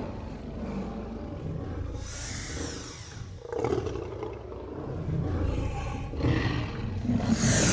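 Tyrannosaurus rex roar sound effect: deep, rough roaring that swells and falls in several surges. A breathy high rush comes in about two seconds in and again near the end.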